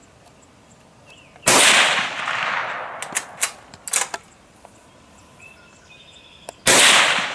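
Two rifle shots from a Krico .22 Magnum rifle, the first about a second and a half in and the second about five seconds later, each with a ringing echo that fades over a second or so. In between come a few short metallic clicks as the action is worked for the next round.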